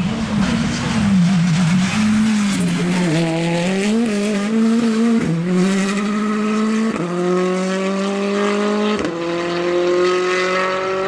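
Rally car engine on a gravel stage, its note wavering at first, then climbing hard under full throttle with sharp drops at upshifts about seven and nine seconds in. Loose gravel hisses under the tyres throughout.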